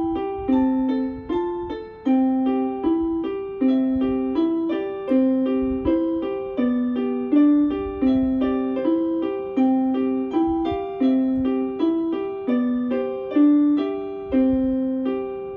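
Yamaha portable electronic keyboard played with a piano sound: a slow tune of single notes over a lower line, each note struck and dying away, ending on a held note that fades near the end.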